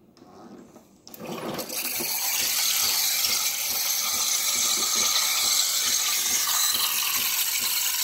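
Saeco Vienna Plus steam wand turned on about a second in, hissing steadily as it froths milk in a cup, with a rapid irregular crackle as air is drawn into the cold milk.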